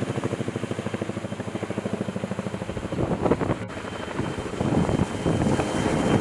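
Vertol tandem-rotor heavy-lift helicopter hovering while it lifts a log on a long line, its rotors beating at about a dozen pulses a second. Near the middle the beat turns rougher and less even, mixed with wind noise.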